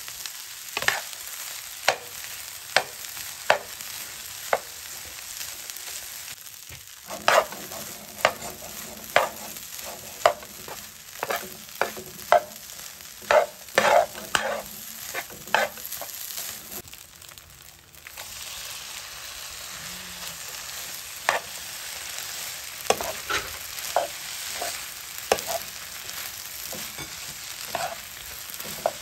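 Fried rice sizzling in a hot frying pan while a metal spatula stirs and tosses it, clacking and scraping against the pan about once a second, with a short lull a little past halfway.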